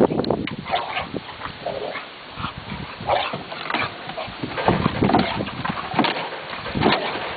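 Olde English Bulldogge making short, rough vocal noises while play-fighting, in irregular bursts about every second.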